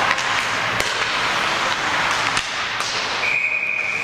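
Ice hockey rink noise with a few sharp knocks of play, then a referee's whistle blown as one long, steady, shrill tone starting about three seconds in.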